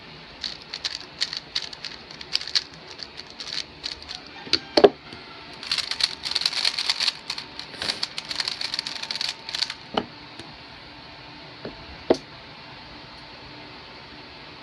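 A plastic 3x3 speedcube being turned by hand: scattered clicks of single turns, then a fast, continuous clatter of rapid turning for about three and a half seconds, with a few sharper knocks, the loudest a little before five seconds in. The turning stops about ten seconds in, leaving a faint steady hiss and one more knock.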